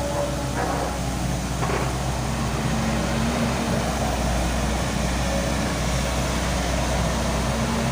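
Volvo excavator's diesel engine running steadily at work, with a few short clanks in the first two seconds and a steady hum that joins about two seconds in.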